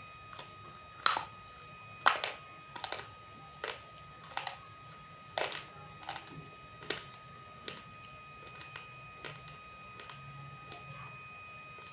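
Roasted multani mitti (fuller's earth clay) crunching: about nine sharp, crisp cracks, roughly one a second, then smaller, fainter crackles near the end.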